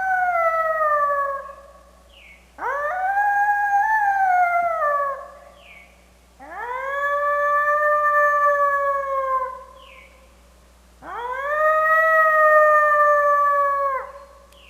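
A wolf howling: the end of one long howl, then three more howls of about three seconds each, every one sweeping up quickly at the start and then holding its pitch or sliding slowly down before breaking off.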